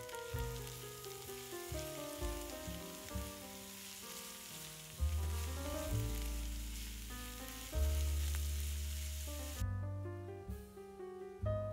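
Grated carrot, onion and garlic sizzling in a nonstick frying pan, heard as a steady hiss under background music with piano-like notes; the sizzle cuts off about ten seconds in, leaving only the music.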